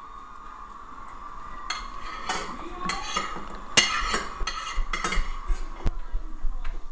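A spoon scraping and clinking against a bowl while scooping out chocolate sauce. It is a quick, uneven run of strokes that starts about a second and a half in and stops shortly before the end, over a faint steady hum.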